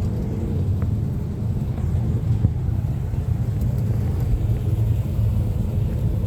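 A car engine running steadily with a low, even rumble.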